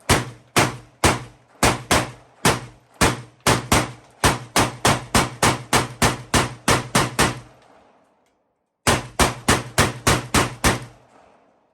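Semi-automatic gun fired in rapid fire by bumping the trigger: a long string of sharp shots at about three a second, quickening toward the end, then after a pause of about a second a second quick string of about eight shots.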